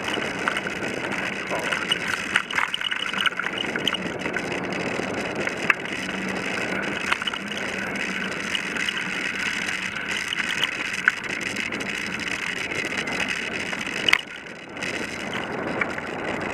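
Bicycle rolling over a gravel forest track, picked up by a camera mounted on the bike: steady tyre-on-gravel noise and rattling with scattered sharp clicks. A louder clack about 14 seconds in is followed by a brief, quieter moment.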